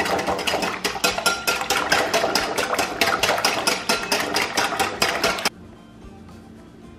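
Metal whisk beating thin crêpe batter in a glass bowl: rapid, even clinking and scraping of the wires against the glass, stopping abruptly about five and a half seconds in.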